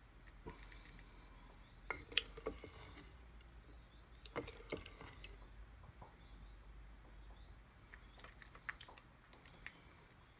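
Wooden spoon scooping thick baked beans out of a glazed bean pot: faint wet squelches and soft clicks of the spoon against the pot, in a few short clusters.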